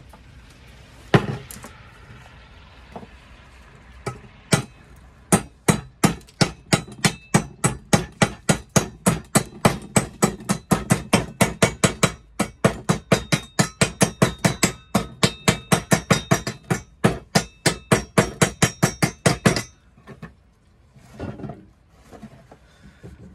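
A chipping hammer knocks slag off an arc weld on 316 stainless steel box section: fast, even metallic taps, about three to four a second, which start about four seconds in and stop suddenly near the end. A single louder knock comes about a second in.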